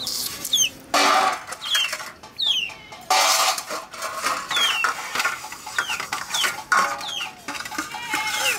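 A steel-wool scrubber scouring aluminium plates, in rasping bursts with the loudest about a second in and again about three seconds in. Young chickens peep repeatedly throughout, short falling chirps several times.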